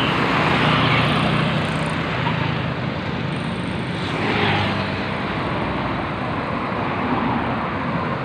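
Road traffic: vehicles running and passing on the road, with a steady low engine hum and one vehicle swelling louder as it goes by about four seconds in.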